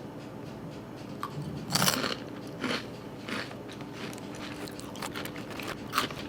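Someone eating baked Hot Cheetos: several short crunches while chewing, the loudest about two seconds in.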